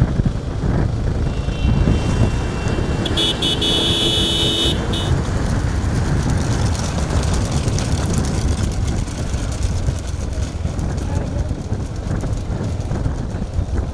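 Vehicle engines and wind noise running steadily, with a horn sounding from about one to five seconds in.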